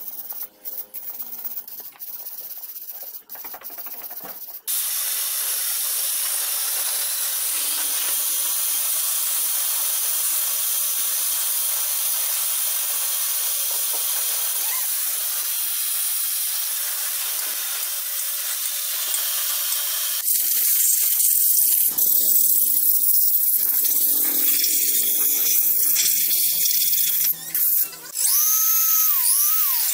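A stiff hand brush scrubbing a motorcycle engine casing, then a pressure washer jet hissing steadily against the engine, louder and rougher about two-thirds through. Near the end an electric drill with a wire-wheel brush starts up with a wavering whine.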